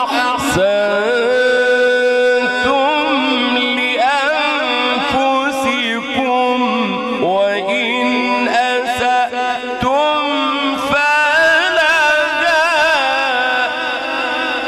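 A man reciting the Quran melodically into a microphone, drawing out long held notes and bending them through fast, wavering ornaments.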